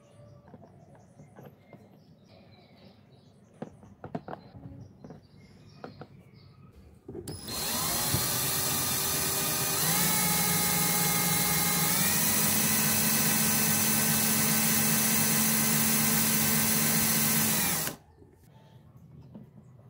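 Electric drive motor running a miniature gear pump on a homemade PVC hydraulic rig: a high, steady whine starts about seven seconds in, steps up in pitch twice, and cuts off suddenly near the end. Before it, a few light clicks and taps of plastic parts being handled.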